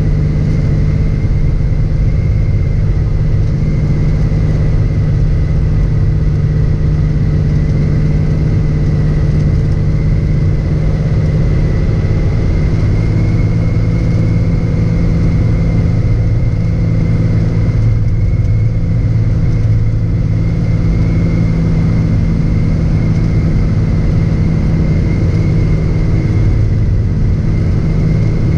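Cessna 206's single piston engine and propeller running steadily on a landing approach, heard from inside the cockpit: a loud, even drone with a thin high whine above it.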